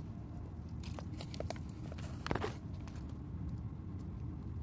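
Hands scraping and pressing sandy soil around a chili seedling's root ball, making scattered soft crunches and rustles, the strongest a little past halfway. A steady low rumble runs underneath.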